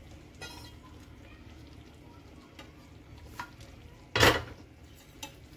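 Boiled cluster beans and their cooking water tipped into hot masala in a stainless steel pan, with a low sizzle underneath. There are light clinks of a metal spatula against the pan and one loud metal clank a little past four seconds.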